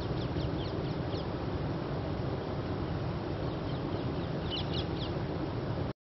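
Egyptian goose goslings peeping in quick runs of short, high, falling notes, once near the start and again about four and a half seconds in, over a steady low background rumble.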